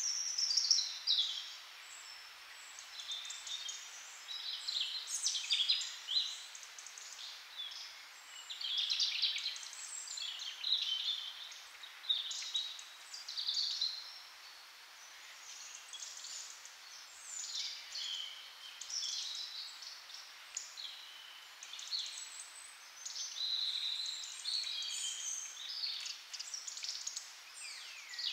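Small songbirds chirping and twittering almost without pause, many short high calls overlapping one another.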